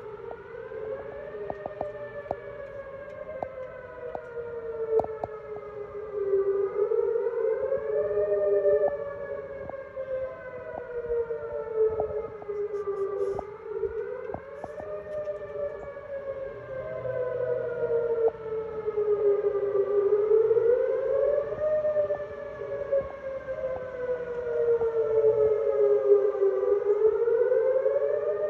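Tornado warning siren sounding for its test: a wail of several tones together, its pitch slowly rising and falling about once every six seconds, growing louder toward the end.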